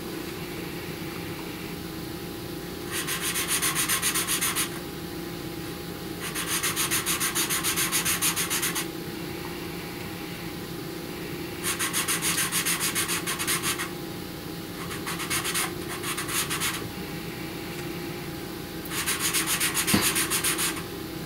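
Pastel pencil scratching quickly back and forth on paper in five bursts of about two seconds each, hatching in fine stripes.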